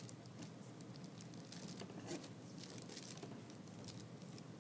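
Tissue paper rustling and crinkling softly as fingertips press and smooth it down, with many faint light ticks scattered through.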